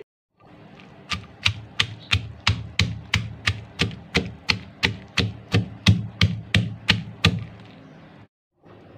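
A wooden pestle pounding chopped onions in a stone mortar, a steady run of dull strikes at about three a second that stops about seven seconds in.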